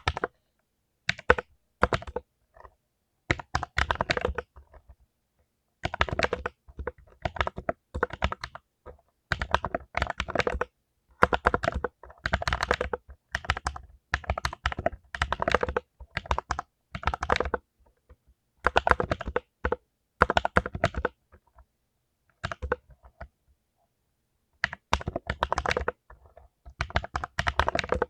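Typing on a mechanical keyboard with clicky blue switches: quick runs of sharp key clicks in bursts of a second or few, broken by short pauses and a longer pause a bit past the middle.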